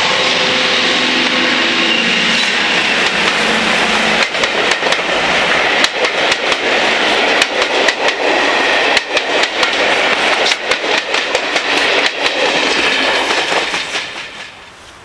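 Class 55 Deltic diesel locomotive, with its twin Napier Deltic two-stroke engines, passing close by with a steady engine drone. It is followed by its coaches, whose wheels clatter rhythmically over the rail joints. The sound fades away near the end.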